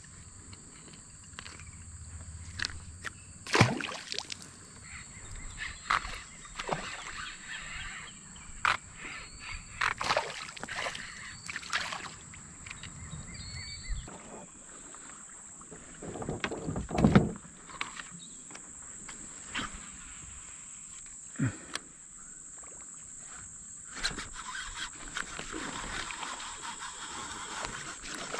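Scattered clicks and knocks of a smallmouth bass being handled and unhooked in a plastic fishing kayak, with one louder low thump and splash about halfway through as the fish is tossed back. A steady high-pitched insect drone runs underneath throughout.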